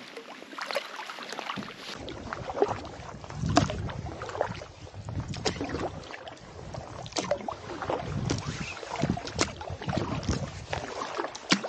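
Canoe paddle strokes in calm water: the paddle dips and pulls with a splash and trickle every second or two.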